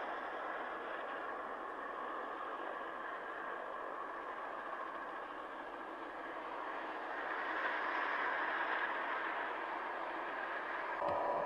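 Light turbine helicopter running on the ground with its rotor turning: a steady turbine whine and rotor noise, which grows a little louder about two-thirds of the way through.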